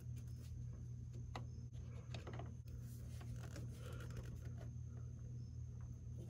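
Faint scratching and a few light clicks of a marker pen marking a bolt hole on a car's inner fender through a reservoir bracket, over a steady low hum.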